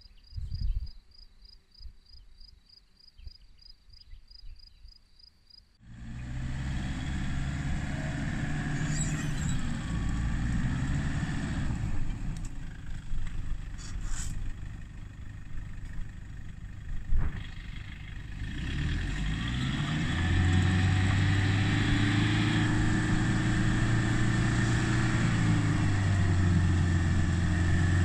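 Toyota Hilux camper's engine working under load as the truck drives through deep muddy ruts, starting abruptly about six seconds in and growing louder and steadier over the last third. Before it, quiet with a rapid, regular high-pitched chirping.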